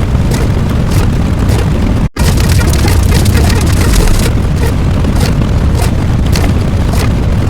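Loud, continuous booming noise heavy in the bass, with a brief dropout about two seconds in.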